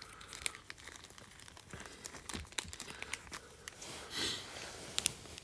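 Faint crinkling and small clicks of trading cards and plastic being handled, with a soft rustle swelling about four seconds in.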